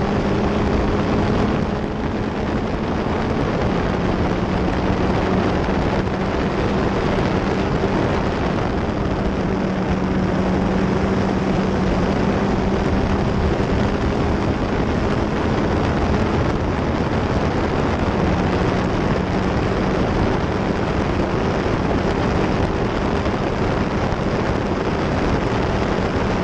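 F1600 open-wheel race car engine running at high revs, heard from an onboard camera with heavy wind rush over the microphone. The engine note holds nearly steady, with a short dip about two seconds in.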